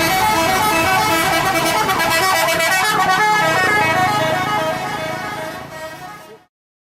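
Indonesian bus 'telolet' multi-tone horn playing a tune of changing notes. It fades in the last seconds and cuts off abruptly.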